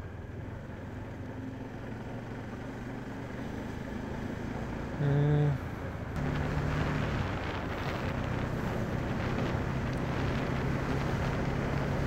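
Bajaj Dominar 400's 373cc single-cylinder engine running as the motorcycle rides along, getting gradually louder, with wind on the microphone. A vehicle horn sounds briefly about five seconds in, and from about six seconds the engine holds a steady note.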